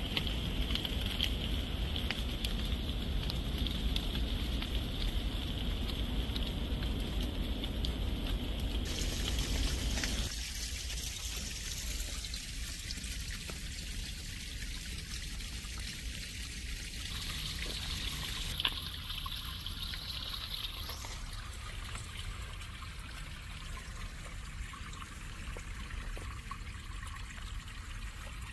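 Rain falling steadily in forest. About ten seconds in it gives way to rainwater trickling and running through a corrugated drainage pipe.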